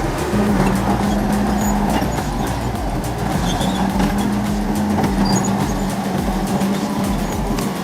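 A heavy vehicle's engine running steadily under background music.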